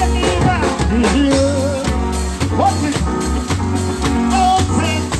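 Nine-night band playing loud through big speaker boxes: a steady pulsing bass beat with regular drum hits and a singing voice over it.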